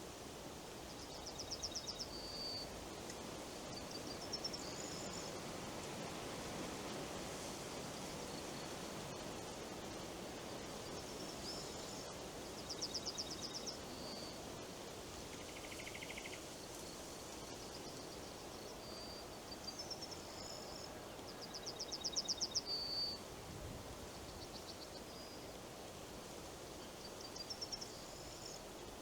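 Steady wind moving through forest leaves, with a small songbird singing a short, fast, high trill that ends on a lower note, repeated several times.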